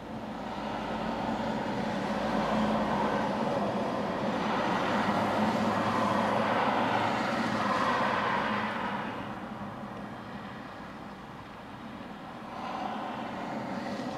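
Highway traffic passing close by: tyre and engine noise swells over a couple of seconds, holds, and fades away about nine seconds in, then a second, quieter vehicle passes near the end.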